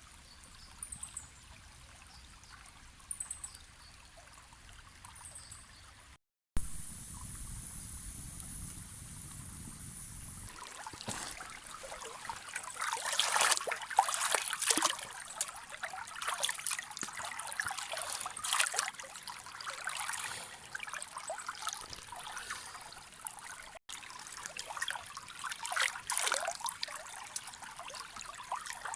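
Mountain stream babbling and trickling over rocks. It is faint at first, then much louder and closer from about ten seconds in.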